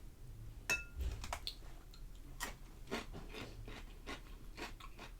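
A person chewing food close to the microphone, with many small irregular wet mouth clicks; one sharper click with a short ring comes a little under a second in.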